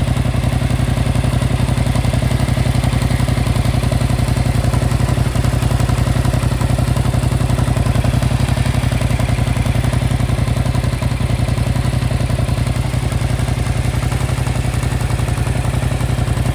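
Yamaha MT-07's 270-degree parallel-twin engine idling steadily, with an even, rapid mechanical pulsing.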